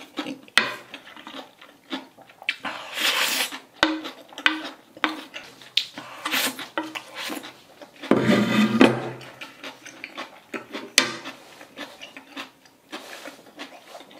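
Close-miked eating: chopsticks and a spoon clicking and scraping on a ceramic plate, with chewing of jjajang ramyeon. There are repeated sharp clicks and a couple of longer, louder eating noises about three and eight seconds in.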